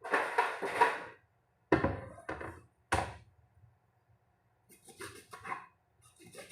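Irregular knocks and scraping. A rubbing, scraping cluster comes first, then two sharp thuds, then softer scraping near the end, over a faint steady hum.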